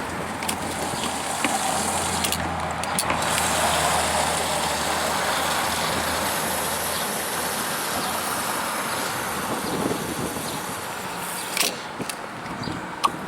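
An engine running steadily, swelling over the first few seconds and then holding level, with a few sharp clicks and knocks near the end.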